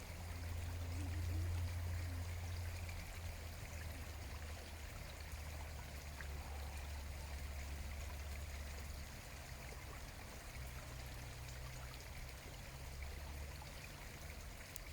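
Running water rushing steadily, with a low rumble underneath.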